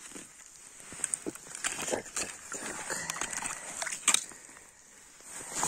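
Crunching snow and rustling glove and sleeve as a wooden ice-fishing tip-up is handled at the hole, with scattered small clicks and one sharper click about four seconds in.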